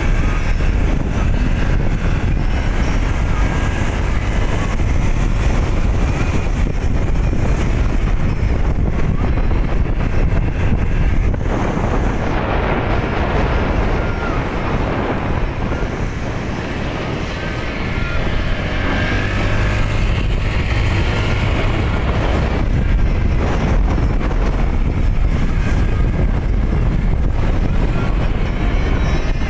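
Wind buffeting the microphone on a moving motorcycle, over the motorcycle's engine running steadily; the rumble eases briefly about halfway through.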